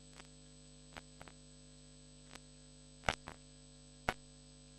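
Near silence: a low steady electrical hum with a thin high whine, broken by a few short clicks, the sharpest about three and four seconds in.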